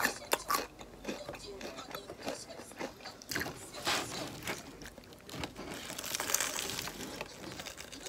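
Crunchy bites and chewing of a crisp fried corn dog with a cubed coating, in irregular crunches, with the brown paper bag it is held in rustling now and then.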